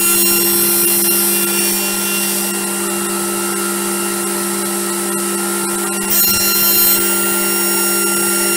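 Circular saw blade on a step-motor-driven three-axis milling machine, its motor running with a steady hum. It gets louder and higher-pitched in the first two seconds and again about six seconds in, as the blade cuts.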